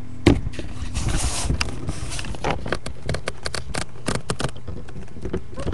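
Wooden toy trains and track pieces being handled: a run of small clicks, knocks and scrapes, with a sharper knock about a quarter second in.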